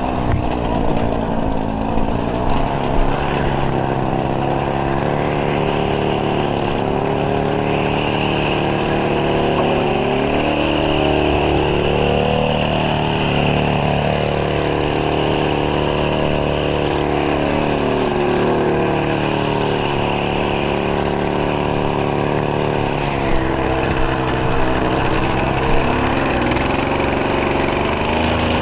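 Small petrol engine of lawn care equipment running steadily at working speed, its pitch drifting up and down a few times.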